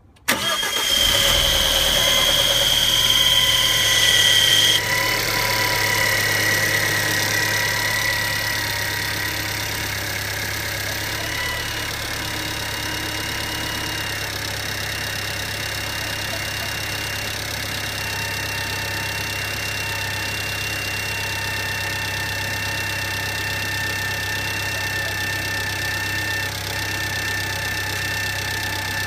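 Car engine cranking and catching, then idling steadily, with a high-pitched whine from the engine accessories: an abnormal noise. The engine runs faster for about the first five seconds after starting, then settles; the whine holds on over the idle.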